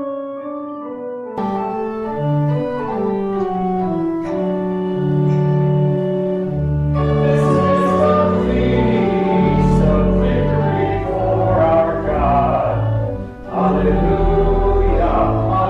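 Church organ playing a hymn introduction, with deep bass notes coming in a little over a second in; voices join in singing with the organ about seven seconds in.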